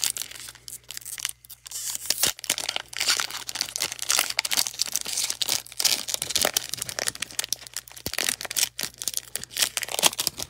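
A foil 2021-22 Panini Donruss basketball card pack being torn open by hand, its wrapper crinkling and crackling in a dense run of short rustles and snaps.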